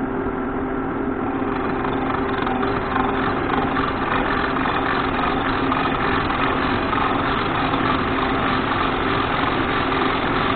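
Monarch engine lathe running steadily with its four-jaw chuck turning, the gearing giving a steady hum with a few held tones, while the tool takes a facing cut across a rough cast hydraulic press plate to true it flat. The sound grows a little louder about two seconds in.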